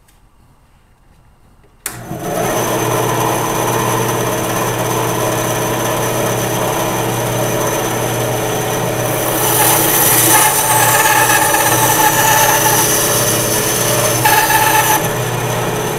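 Ryobi benchtop band saw switched on about two seconds in, its motor and blade running with a steady hum. From about halfway the blade cuts through a block of wood, adding a higher hiss for some five seconds, and then the saw runs free again.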